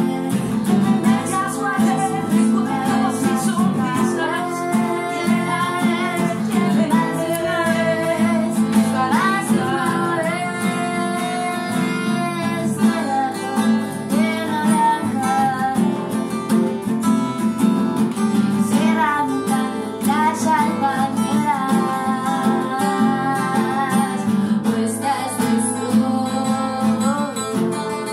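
Two women singing a song together to two strummed acoustic guitars, one of them a nylon-string classical guitar.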